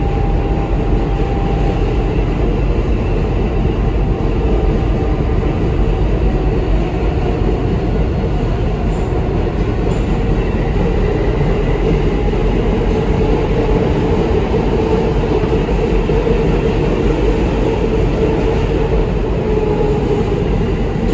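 R160B Siemens subway train running at speed: a steady, loud rumble of wheels on rail with faint steady motor tones over it.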